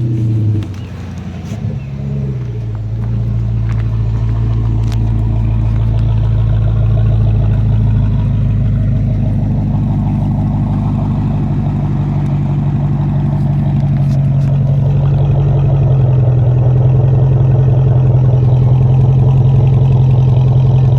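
2008 Dodge Magnum R/T's 5.7-litre Hemi V8 through an SLP Loudmouth exhaust. A rev dies away at the start, followed by a steady, deep, loud drone. About two thirds of the way through, the drone rises slightly in pitch and gets a little louder.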